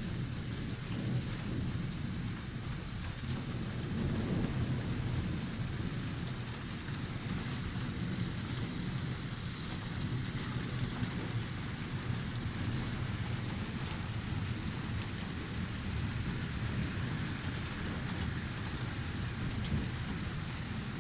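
Heavy rain pouring down, with thunder rolling on continuously underneath as a steady low rumble rather than separate claps.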